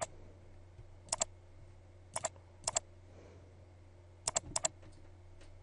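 Computer mouse button clicking about six times at irregular intervals, each a quick pair of clicks, over a low steady hum.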